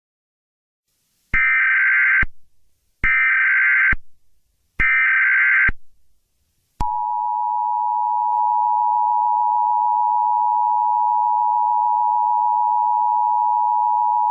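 Emergency Alert System tones: three one-second bursts of SAME digital header data, each a rapid two-pitch warble, about a second apart. About seven seconds in, the steady two-tone EAS attention signal begins, marking the start of a new alert.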